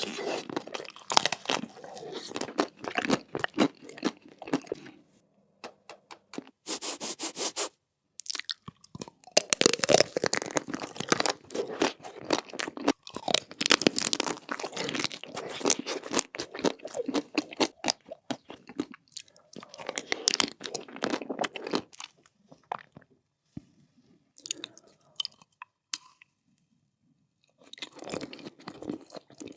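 Close-miked eating: crunchy bites and chewing of food, in bursts of dense crackling with a few short silent gaps between them.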